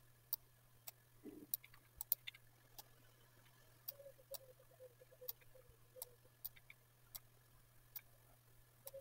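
Faint, sharp clicks of a computer mouse button at irregular spacing, about one or two a second, placing the ends of lines in a drawing program, over a faint steady hum.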